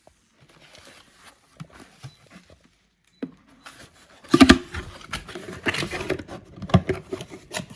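Gift wrapping paper rustling, crinkling and tearing as a present is opened: faint scattered crackles at first, then a much louder, busier stretch of tearing and crumpling from about four seconds in.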